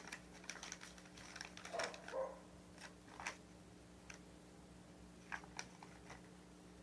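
Faint, scattered rustles and light clicks of a small folded paper slip being handled, over a low steady electrical hum.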